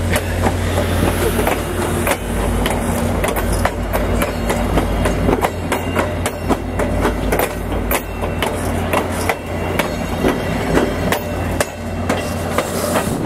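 VIA Rail passenger train rolling past at departure, its wheels clacking over the rail joints in a steady stream of sharp clicks over a continuous low rumble.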